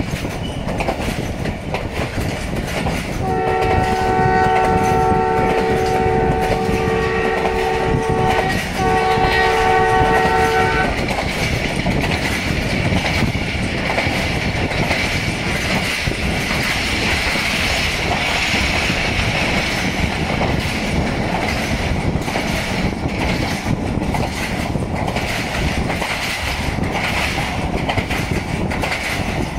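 Multi-tone air horn of the leading ZCU-20 diesel locomotive. It sounds one long blast a few seconds in, then a short second blast right after. Under it runs the steady rumble of the passenger coaches riding the rails.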